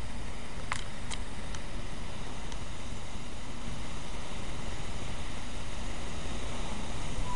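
Torrential rain pouring down in a steady, even hiss. A few faint ticks come through about a second in.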